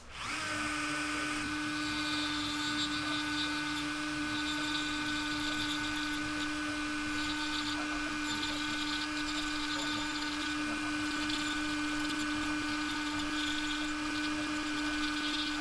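Handheld rotary tool with a ball burr grinding grooves into a wooden lure body. It spins up at the start, then holds a steady high whine with a gritty hiss as the burr cuts the wood.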